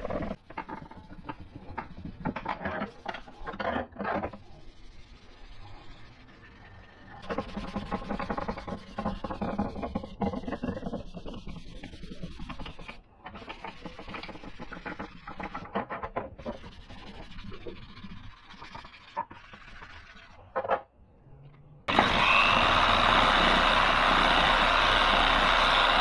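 Sandpaper on a block rubbed back and forth over the case's plastic parts in irregular strokes, scuffing the gloss finish so paint will stick. About 22 seconds in, a dual-action orbital sander starts and runs steadily and loudly on the metal side panel.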